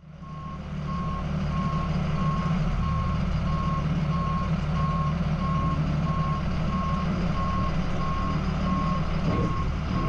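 Vehicle reversing alarm beeping steadily about twice a second over the low, steady running of its engine: the aircraft tow tractor backing up with a large jet on its towbar.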